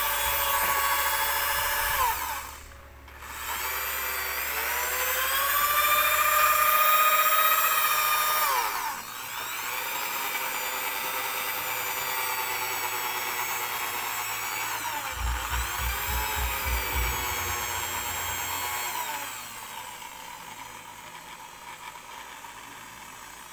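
Corded electric drill with a metal mixing rod running in a bucket of thick liquid soap, whipping it to froth. The motor's whine slows almost to a stop about three seconds in and speeds back up, dips again around nine seconds, then runs steadily and becomes quieter near the end.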